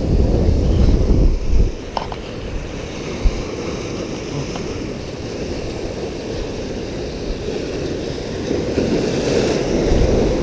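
Wind buffeting the microphone for the first second and a half, then steady surf washing against granite jetty rocks, swelling again near the end. There is a single thump about three seconds in.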